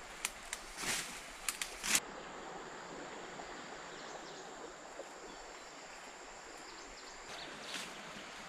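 Rustling and snapping of ferns and undergrowth underfoot for about the first two seconds, then steady forest ambience with a thin, high, continuous insect buzz and a little rustling near the end.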